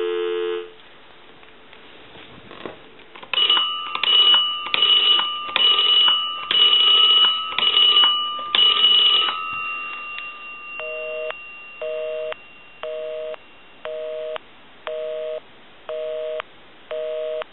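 Dial tone cutting off, then an Automatic Electric Space Saver 83 rotary telephone being dialed, a run of dialing sounds lasting several seconds. Then a busy signal comes back on the line: evenly spaced two-tone beeps, about one a second, seven of them.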